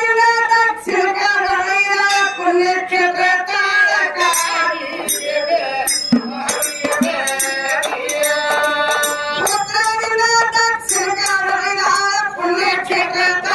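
A woman singing a folk song into a microphone, holding long wavering notes, accompanied by small hand cymbals clinking in a steady rhythm.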